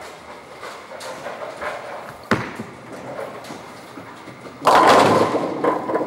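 Bowling alley: a ball thuds onto the lane a couple of seconds in and rolls, then pins crash and scatter loudly about five seconds in, the clatter lasting over a second, over the steady hum of the alley's machinery.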